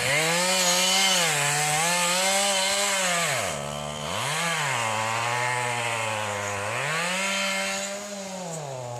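Chainsaw running at high revs while felling a tree, its engine pitch falling and rising as the throttle and cutting load change, with a brief sharp drop in pitch about three and a half seconds in.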